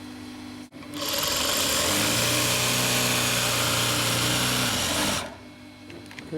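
Juki LZ2280 industrial zigzag sewing machine running fast for about four seconds, picking up speed at the start and then holding steady before it stops. The motor hums more quietly before and after the run.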